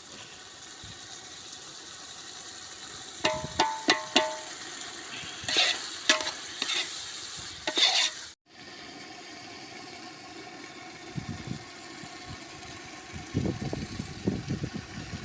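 A ladle stirring ingredients frying in oil in a metal pot, over a steady sizzle. The ladle clinks and rings against the pot several times a few seconds in, and scrapes and clatters again near the end.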